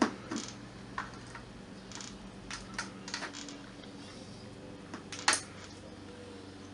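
Irregular small clicks and knocks of tools and hard plastic parts being handled during a bench repair of a PC speaker, the loudest a sharp knock about five seconds in, over a faint steady low hum.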